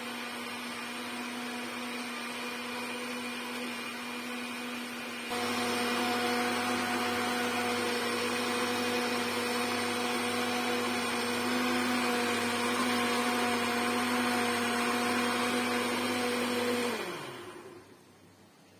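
Geepas electric blender motor running with a steady whine. It gets louder about five seconds in, then is switched off near the end and winds down, its pitch falling as it fades.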